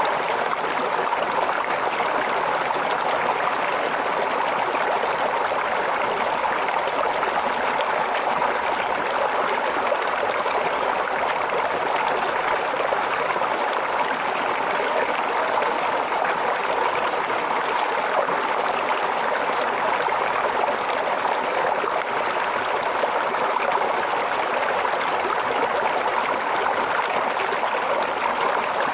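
Water of a small stream babbling and trickling over stones, a steady, unbroken rush.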